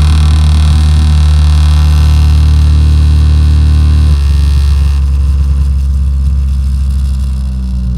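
Hyanka SDM-08 Mini 8-inch under-seat powered subwoofer playing a loud, steady bass test tone that steps to a new frequency about four seconds in. Over the tone is a buzzy rattle that stops about five seconds in, from a loose screw on the unit shaking in the vibration.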